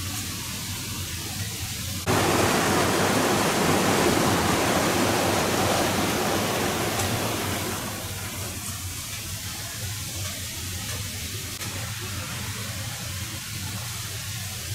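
Creek water rushing and splashing over rocks, a steady hiss that jumps abruptly louder about two seconds in and eases back down about eight seconds in.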